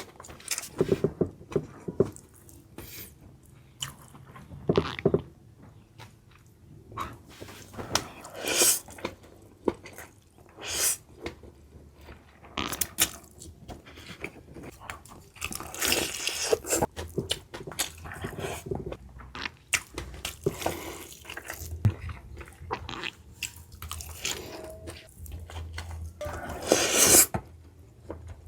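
Eating sounds: a person chewing and biting food, in irregular bursts of wet mouth noises and short clicks.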